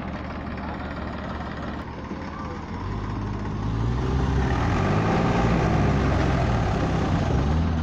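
Heavy vehicle engine running, growing louder about three seconds in, its pitch rising and falling several times as it revs.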